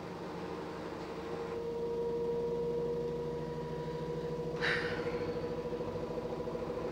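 LG F1058ND5 direct-drive washing machine running mid-cycle with a steady whining hum and a fast pulsing drone beneath it, a noise the owner suspects comes from the pump. A brief hissing rush sounds about two-thirds of the way through.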